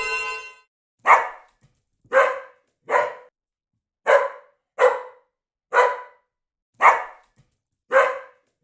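A dog barking, eight separate barks about a second apart with silence between them.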